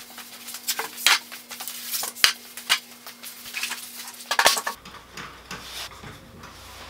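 Hard clatter and sharp knocks as a plywood dog-hole worktop is handled and set down on wooden sawhorses and metal bench dogs and hold-downs are put on it; the knocks fall in the first four and a half seconds, with the last loud one near the end of that run.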